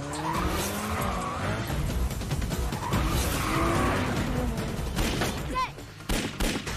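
A car engine revs up twice, each time rising in pitch, while the tyres squeal as the car drifts through the corner. This is a film soundtrack, with a music score mixed underneath.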